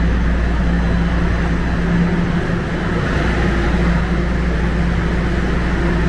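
Toronto Line 4 subway train moving slowly along the station platform, giving a steady low electric hum with a droning tone over a wash of running noise.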